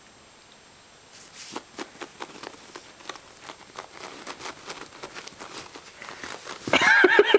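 Puppy chewing and tugging a plush sheep toy on carpet: irregular soft clicks and rustles that start about a second in. Near the end a much louder pitched sound comes in, pulsing several times a second.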